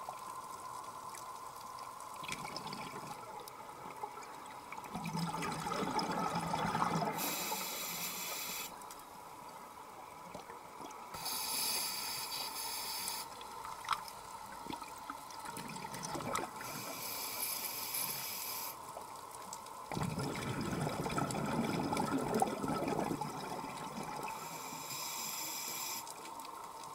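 Scuba diver breathing through a regulator underwater: hissing inhalations alternating with louder bubbling exhalations, several breaths in a row.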